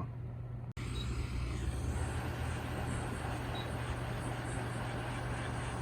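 A steady rush of blowing air over a low, even hum, starting abruptly just under a second in.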